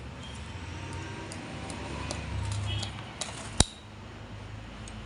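Light metallic clicks and clinks of engine parts and tools being handled, with one sharp click about three and a half seconds in, over a low steady rumble.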